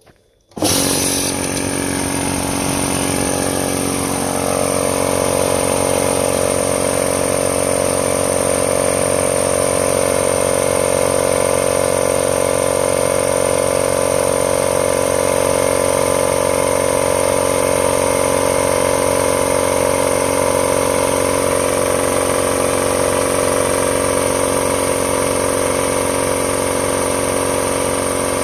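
Stanley 2.5 hp belt-drive twin-piston air compressor switched on, starting suddenly about half a second in, coming up to speed over the first few seconds, then running steadily as it pumps up its empty 50-litre tank.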